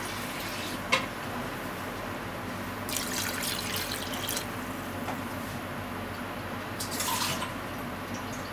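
Water poured from a plastic measuring cup into a pot of cut potatoes, carrots and onion, splashing for over a second about three seconds in, with a shorter splash later. A sharp knock about a second in, over a low steady hum.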